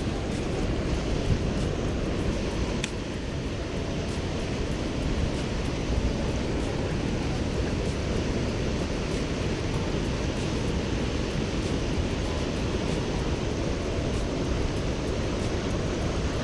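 Steady rush of fast white water below a dam spillway.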